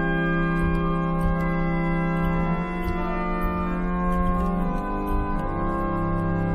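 Church pipe organ playing slow, held chords on the swell manual's chorus stops. The chord changes twice, each sounding steadily until the next.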